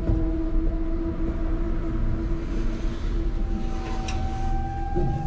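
Elevator car running: a steady low rumble under a constant hum, with the hum's pitch shifting slightly about three seconds in. A single thump comes near the end.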